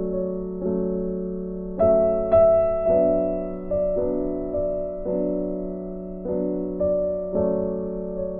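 Soft background piano music: slow chords struck about once a second, each fading before the next.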